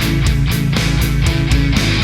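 Background rock music with distorted guitar and a steady driving drum beat.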